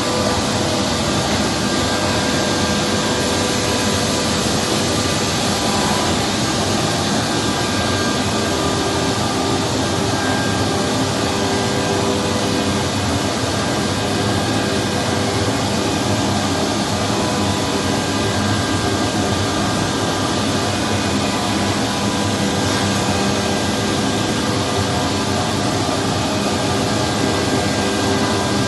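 Bulleri 3515 FPM CNC wood machining centre running steadily: an even rushing noise with several constant tones over it, with no change or separate impacts.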